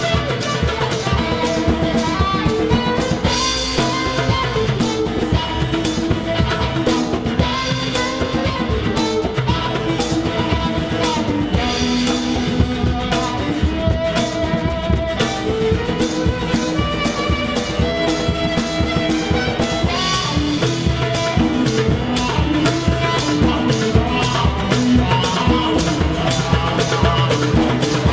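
Live contra dance band playing an instrumental dance tune: fiddle carrying the melody over strummed acoustic guitar and a drum kit keeping a steady beat.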